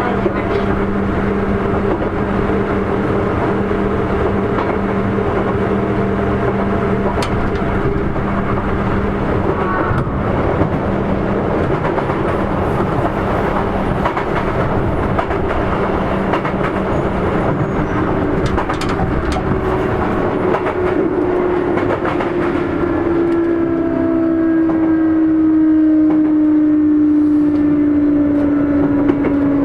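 Sotetsu 8000 series electric train heard from on board: steady wheel-on-rail noise and motor hum. From a little over two-thirds of the way in, the Hitachi IGBT-VVVF inverter's traction-motor tone grows louder and slides slowly down in pitch as the train slows.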